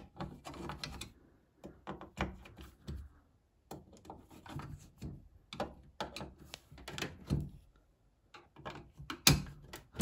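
Hand screwdriver tightening screws into a PC tower's sheet-steel drive cage: irregular small metallic clicks and scrapes, with a sharper knock about nine seconds in.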